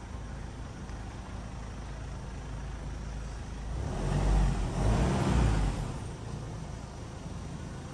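A vehicle driving along a dirt trail: a steady low rumble of engine and tyres that swells louder for about two seconds around the middle.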